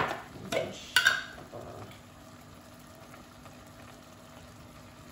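A few sharp clinks in the first second as a glass jar of salt is picked up, then onion-and-tomato masala simmering quietly in an aluminium pot on a gas hob.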